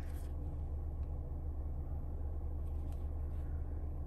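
Steady low hum inside the cabin of a Mercedes-Benz GLC300 with the car switched on, with a few faint clicks.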